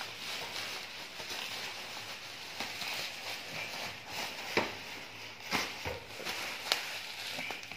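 Plastic wrapping and bubble wrap rustling and crinkling as a cardboard box is handled, with a few sharp clicks or knocks from the box about halfway through.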